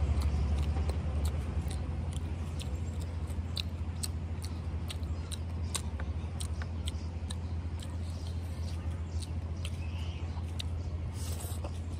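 Close-miked chewing: irregular wet mouth clicks and smacks, about one or two a second, over a steady low hum.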